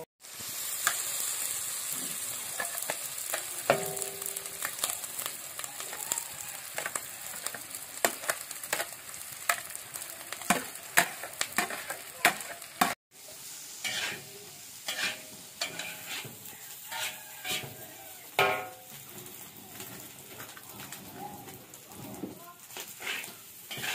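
Rice stir-fried in a hot wok: steady sizzling, strongest near the start, with many sharp scrapes and clacks of a metal spatula against the pan. The sound drops out for a moment about halfway through.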